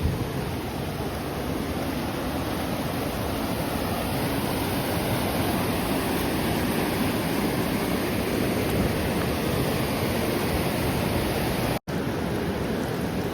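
Steady rushing of a fast river, an even wash of water noise, with a split-second gap near the end.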